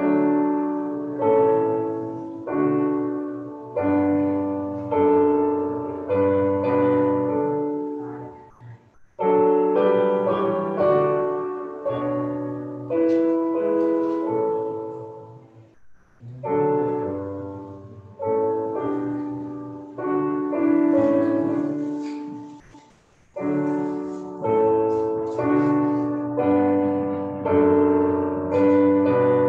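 Piano playing slow chords in phrases, each chord dying away after it is struck, with short breaks between the phrases about 9, 16 and 23 seconds in.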